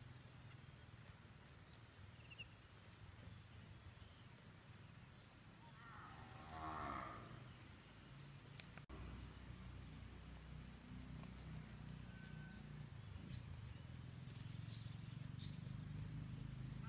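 A goat bleats once, a single wavering call of about a second and a half, about six seconds in, over a low steady rumble.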